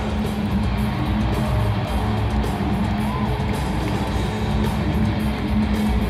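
Loud music with guitar.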